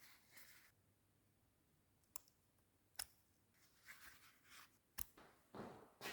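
Near silence broken by a few faint, sharp clicks, one about every second or two through the middle, with soft rustling between them.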